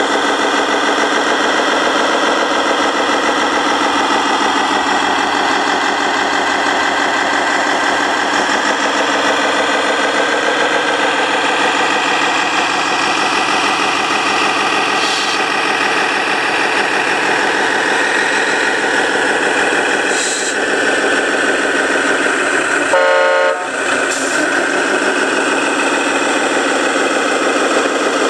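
Radio-controlled model truck running with a steady engine drone, and one short horn honk about five seconds before the end.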